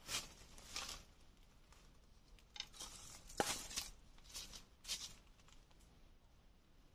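Short scattered rustles and light knocks of bamboo tubes and sticks being handled over dry leaf litter, the sharpest click about three and a half seconds in, then quieter.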